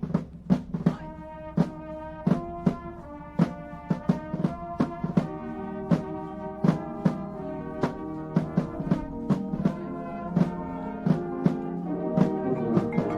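Drum and bugle corps playing: the brass line holds loud sustained chords, punctuated by sharp, frequent drum-line hits.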